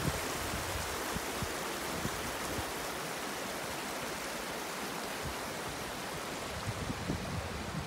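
The East Lyn River rushing steadily over a shallow, rocky bed.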